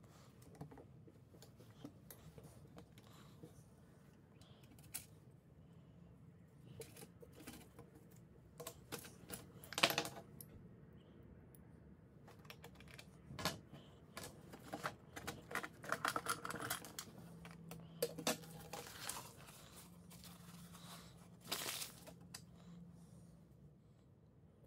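Scattered clicks, taps and light rattles of small metal parts being handled on an old hand-cranked sewing machine and its wooden base, with a few louder knocks near the middle.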